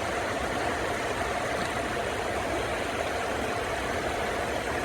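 Steady rush of river water flowing, an even noise with no breaks.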